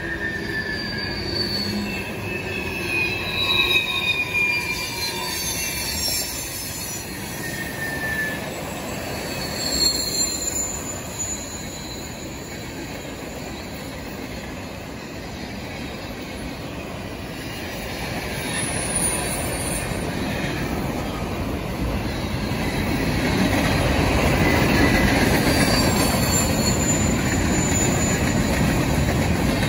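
Freight cars of a long manifest train rolling past: a steady rumble of steel wheels on rail, with high wheel squeals sliding in pitch on and off, most of them in the first ten seconds. The rumble grows louder about two-thirds of the way through.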